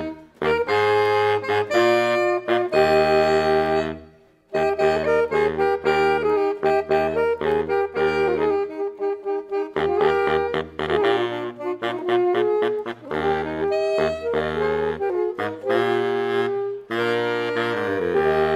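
A saxophone trio playing a harmonized piece, with a large low saxophone holding a bass line under two higher saxophones. The music breaks off briefly about four seconds in.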